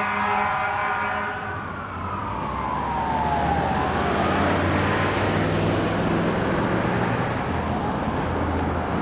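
Ambulance warning sounds: a chord of steady horn tones for about the first second and a half, then the Carson siren's tone falling in pitch as it winds down. The truck's engine and road noise run underneath and are left on their own once the siren fades.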